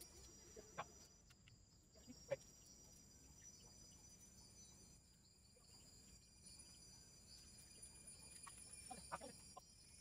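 Near silence: faint, steady, high-pitched insect trilling, broken by a few short, sharp sounds about a second in, at two and a half seconds and near the end.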